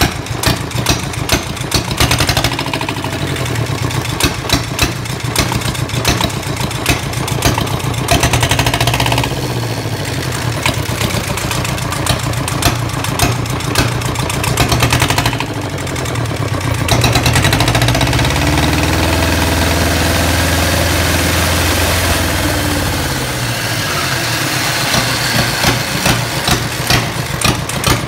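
Small diesel engine in a motorcycle frame running and being revved, without glow plugs and with the CVT not engaged. Its pulsing idle clatter speeds up and drops back a few times, with a longer rev held from a little past the middle before it slows back to idle near the end.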